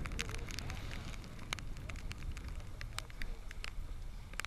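Wind and water rumbling low against an open fishing boat, with scattered, irregular sharp ticks and crackles.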